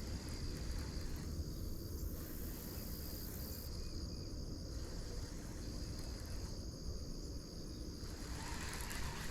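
Insects trilling steadily in one high, unbroken tone, over a low rumble of wind noise.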